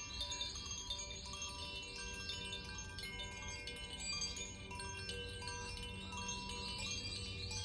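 Koshi and Zaphir wind chimes played by hand: many bright, overlapping ringing tones, struck again and again so that each ring carries on under the next.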